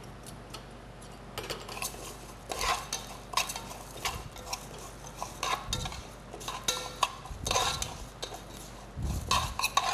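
Spoon scraping and clinking against the side and bottom of a metal pot while stirring vermicelli frying in ghee, in irregular strokes that start about a second and a half in.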